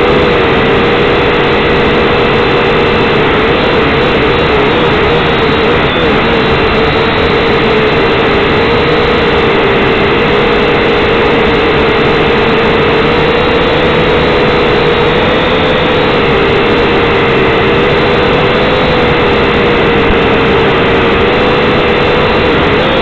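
Syma X5C quadcopter's small electric motors and propellers buzzing steadily in flight, recorded by the drone's own onboard camera, so the buzz is loud and close. The pitch holds mostly steady and wavers slightly a few times.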